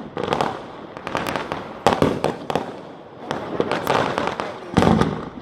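Fireworks going off in rapid succession: sharp bangs and crackling, with one deeper, louder boom near the end.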